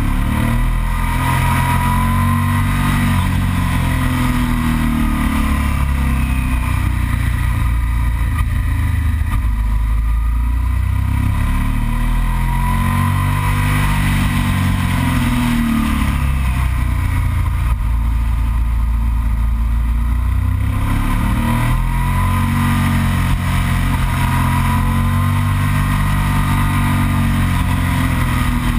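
Yamaha TDM 900's parallel-twin engine pulling through a run of bends, its revs rising and falling several times, over a heavy rumble of wind noise.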